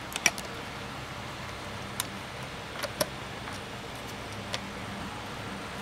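Light, sharp clicks and taps of multimeter test probes being set against the charge controller's screw terminals: two close together at the start, then single clicks about 2, 3 and 4.5 seconds in, over a steady low background noise.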